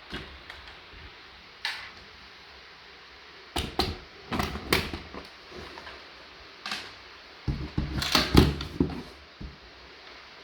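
Plastic toy vehicles being handled: scattered clacks and knocks, with a busy cluster about four seconds in and a heavier one with dull thuds around eight seconds.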